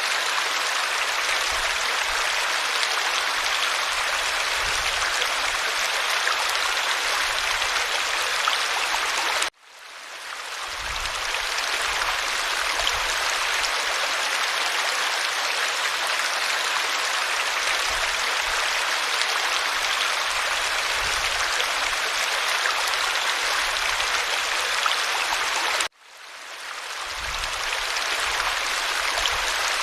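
Small stream flowing steadily, an even rush and babble of water. It cuts out suddenly twice, about ten seconds in and near the end, and fades back in over a second or two each time, the join points of a looped recording.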